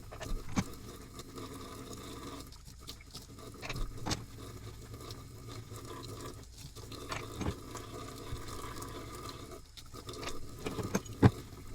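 ARP head studs being washed by hand in soapy water: light splashing and patter with scattered knocks and clinks, the sharpest near the end.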